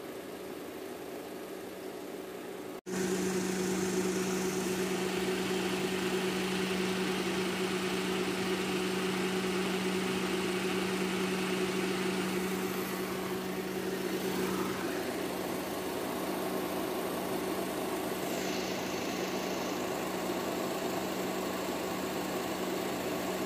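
Perodua Kelisa's engine idling with the air-conditioning compressor running: a steady hum with an even low tone, louder after a short break about three seconds in. The mechanic judges from the gauges that the compressor has lost pressure.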